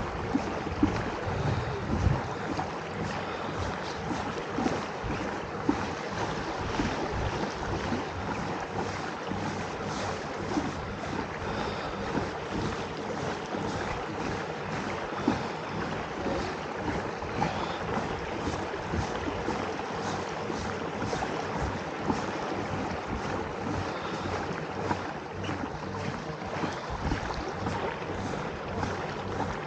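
Wind buffeting the microphone, with water splashing against the hull of a moving kayak. There are a few heavier gusty thumps about one and two seconds in.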